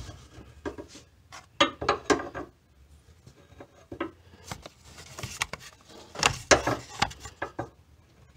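A gas-charged hood lift support being worked by hand onto its ball-stud mount: a string of short clicks, knocks and rubbing scrapes as the strut end meets the metal. These come in clusters, one about two seconds in and a denser one around five to seven seconds.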